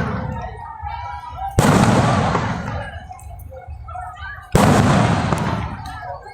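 Aerial fireworks: two loud shell bursts about three seconds apart, each a sharp bang that fades away over a couple of seconds, with people's voices faint in between.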